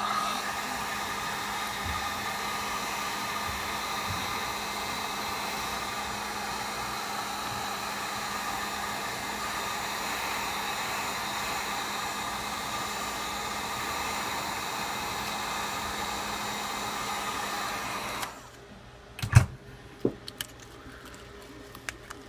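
Wagner heat gun running steadily, the hum of its fan motor and the rush of hot air, heating a phone's glass back to soften the adhesive underneath. It switches off about 18 seconds in, followed by a few light knocks.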